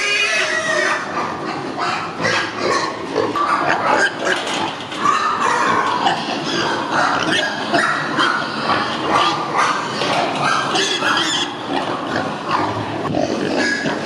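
A crowded pen of young domestic pigs grunting and squealing, many voices overlapping without a break, among many short knocks and clicks.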